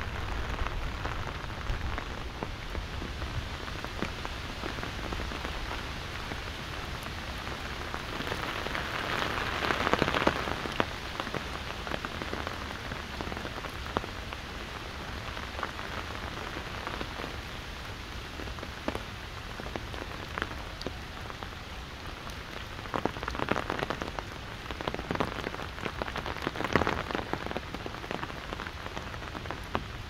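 Steady rain falling on an umbrella held overhead, with many separate drops ticking on it. The rain swells louder for about two seconds around ten seconds in, and again in several short surges near the end.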